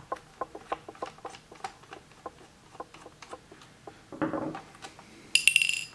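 A small screwdriver clicking irregularly as it backs a tiny screw out of a laptop's plastic bottom case, then a short rustle and, near the end, a bright metallic clink that rings briefly.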